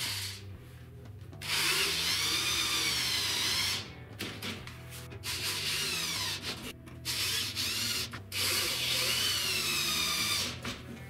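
Cordless drill driving screws into a pine frame's joints: four runs of motor whine of a few seconds each, with short pauses between them, the pitch sagging and rising as each screw goes into the wood.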